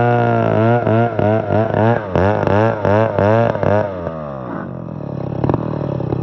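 Stihl 070 two-stroke chainsaw running hard, its pitch dipping and recovering about three times a second, then falling away to a lower, steady idle about four seconds in, with a single knock near the end.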